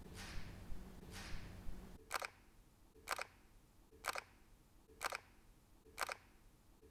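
Fujifilm X-T2 mechanical shutter firing at 1/250 s, a crisp click about once a second. About two seconds in, the sound changes and the clicks become sharper over a quieter background.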